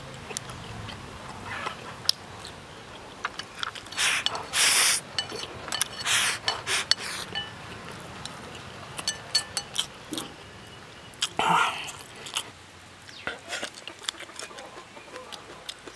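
Close-up chewing and mouth noises of a person eating rice with char siu pork belly and leafy greens, in irregular bursts, with scattered sharp clicks of wooden chopsticks against the bowl.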